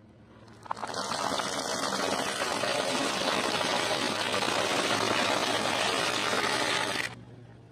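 Crispy fried batter crunching and crackling under a car tyre as the wheel rolls over it. It is a dense, continuous crunch that begins about a second in and stops abruptly near the end.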